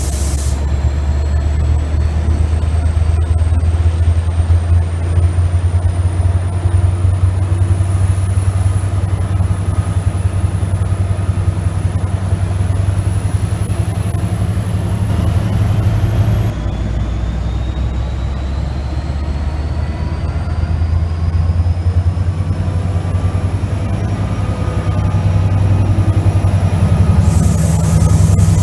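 Diesel locomotive idling beside the platform: a steady low engine drone, with faint high whines that slowly rise in pitch, one breaking off about halfway and a new one starting. A short high hiss comes near the end.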